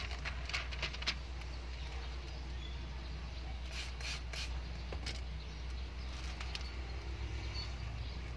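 Hand trigger spray bottle squirting soapy water onto car window glass in short hissing bursts: a few quick squirts in the first second, three in quick succession around four seconds in, then a couple of single squirts. A steady low hum sits underneath.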